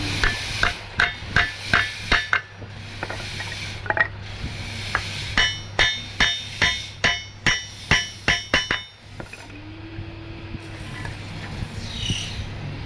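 A hammer striking in two quick runs of blows, about three a second, with a brief rasping stretch between them; the later blows ring. Heard during carpentry on wooden sandals.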